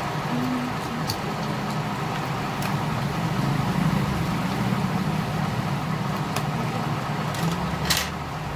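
A steady low mechanical hum, engine-like, with a few light clicks of small metal tweezers on phone plastic and a louder short clatter about eight seconds in.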